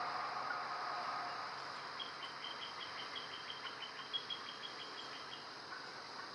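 Early-morning swamp ambience: insects droning steadily, with fainter lower bird calls in the first second. From about two seconds in, a rapid, even run of high chirps, about five a second, lasts for three seconds or so.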